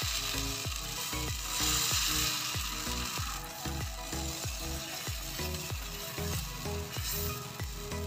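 Adai dosa batter sizzling on a small hot griddle over a wood-fired clay stove as it is poured and spread, loudest a couple of seconds in. Background music with a repeating pattern of notes plays underneath.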